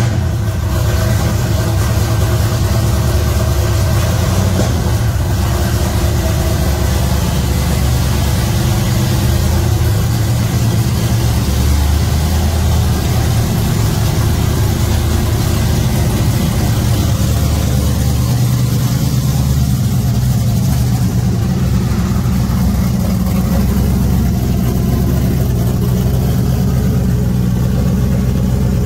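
Stadium Super Truck's V8 engine running just after starting, idling with light throttle as the truck creeps out of a shipping container. The level swells a little a few times as the throttle is opened.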